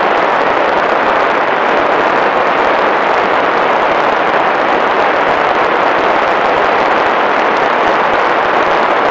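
Steady, loud rush of airflow over the onboard camera of a small fixed-wing UAV in flight, an even noise with no distinct tone.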